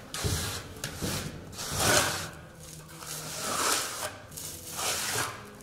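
Primer being spread onto a concrete screed floor in slow rubbing strokes, about one every second and a half; the primer is there to soak into the screed and bind its dust so that later layers will stick.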